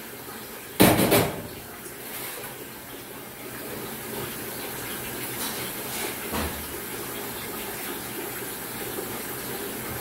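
Goat milk poured from a stainless steel milking pail through a strainer into a stainless milk can: a steady pouring, slightly louder in the second half. A loud clank about a second in, and a few soft knocks past the middle.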